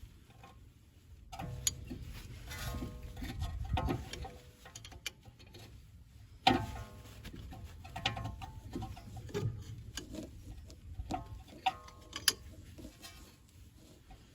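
C-clamp screw being turned to push a brake caliper piston back in over the old pad: irregular metallic clicks and ticks with handling rumble, and a few sharper knocks.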